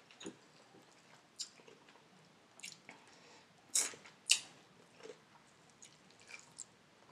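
Biting and chewing crispy fried chicken wings close to the microphone: scattered short crunches of the fried coating and mouth sounds, with two sharp crunches, the loudest, close together about halfway through.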